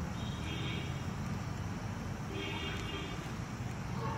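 Steady low rumble of an engine running in the background, with faint distant voices twice.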